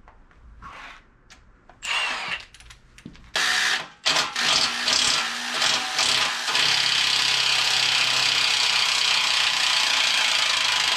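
Impact wrench set to 4, hammering on a bolt of a 5.3 L LS V8 engine: a short burst about three seconds in, then a long steady run of about seven seconds.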